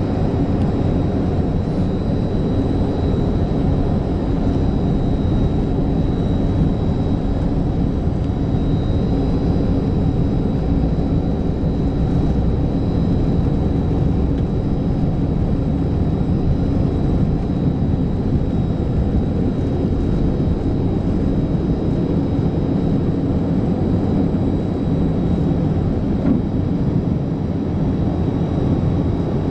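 Yak-40's three rear-mounted Ivchenko AI-25 turbofans running steadily at taxi power, heard inside the cabin as a deep, even rumble with a thin high whine over it.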